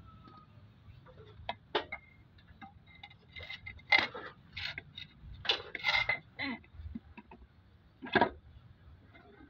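Torque converter being turned and pushed into a Mitsubishi automatic transmission's bell housing: irregular metallic clinks and scrapes of steel on the housing, the loudest about four and eight seconds in.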